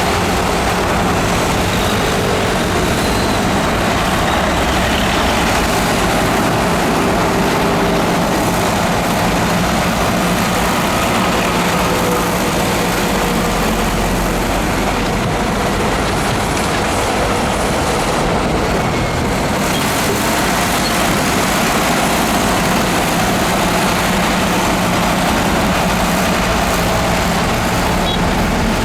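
Heavy diesel earthmoving machinery running steadily under load, a constant low engine drone with dense mechanical noise.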